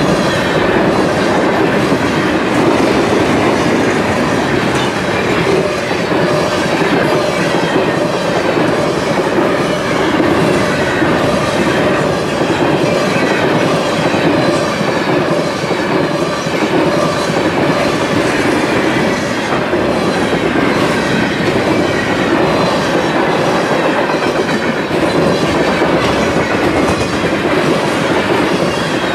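Freight cars of a long train, covered hoppers and tank cars, rolling past close by: a loud, steady rumble of steel wheels on rail with a regular clickety-clack.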